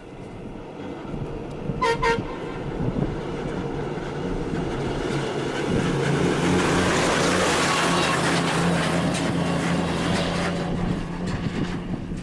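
A short vehicle horn toot about two seconds in, then the engine and road noise of a motor vehicle swelling, loudest in the middle and easing off near the end.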